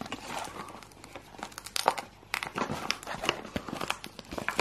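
Packaging of a bicycle stem being handled and opened by hand: plastic bag and card backing rustling, with irregular sharp clicks.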